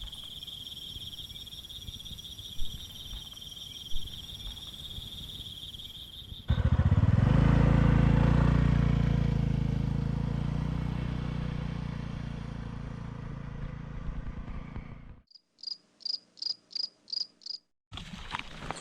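Insects trilling steadily at a high pitch, cut off about six seconds in by a sudden, loud low hum that slowly fades away; near the end come about seven short, evenly spaced high chirps, about three a second.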